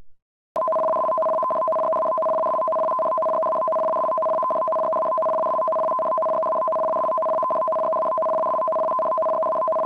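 Japanese Emergency Warning Broadcast (緊急警報放送) signal: a harsh two-tone warble that switches rapidly between a lower and a higher tone. It is the coded signal that switches receivers on for an emergency broadcast, and it starts abruptly about half a second in and runs on steadily.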